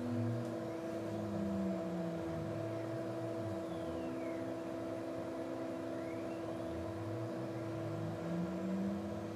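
Leadshine NEMA 23 closed-loop stepper motors driving the ball screws of a CNC-converted PM-25MV milling machine, running a warm-up program at 50 inches per minute. A steady hum with lower tones that shift as each move changes, and faint whines that glide up and down in pitch.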